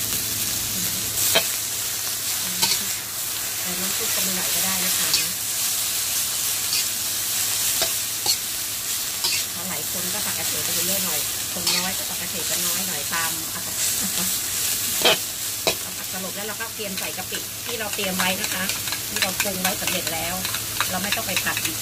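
Water mimosa sizzling as it is stir-fried in a metal wok: a steady frying hiss, with the metal spatula scraping and clanking against the pan now and then.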